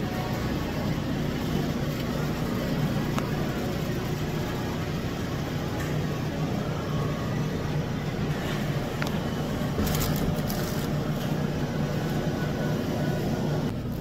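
Steady hum of a supermarket's refrigerated display cases and ventilation, with a brief rustle about ten seconds in.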